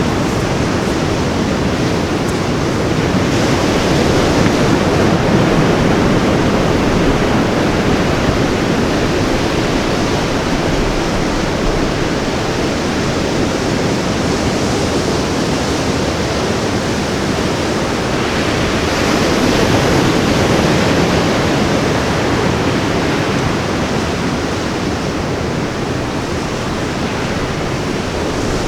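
Ocean surf washing onto a beach: a steady rush of waves that swells louder twice, a few seconds in and again about two-thirds of the way through.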